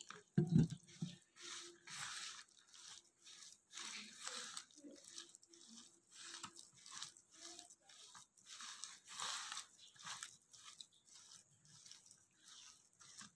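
A hand squeezing and mixing cauliflower florets into a thick, damp flour-and-spice batter in a bowl: repeated soft wet crunching strokes, one or two a second, with a dull knock shortly after the start. This is the florets being coated for Gobi Manchurian before frying.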